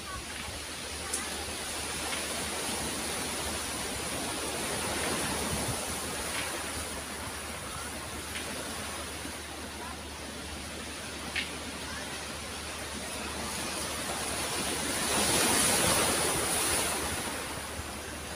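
Sea waves washing onto a pebble beach: a steady rushing hiss that swells and ebbs, loudest about fifteen seconds in, with a couple of faint clicks.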